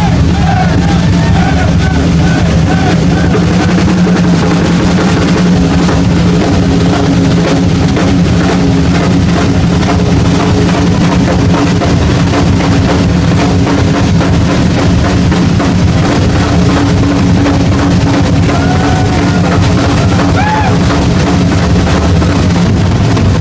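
Live rock drum kit solo: a dense, unbroken run of fast bass-drum strokes, rolls and fills, loud throughout over a steady low drone.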